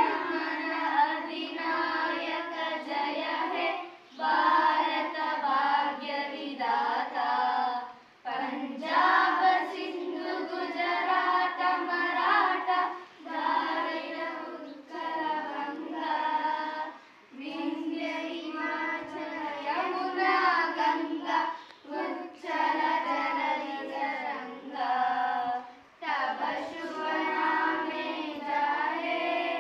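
A group of children singing together in unison, in phrases of a few seconds each with short pauses for breath between them.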